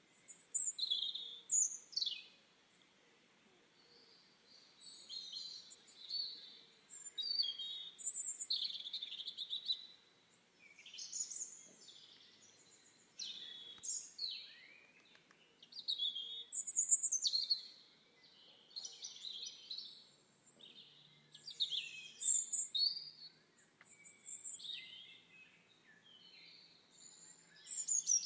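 Wild songbirds singing: short, bright phrases of chirps and quick falling whistles, one every two to three seconds, over a faint steady background.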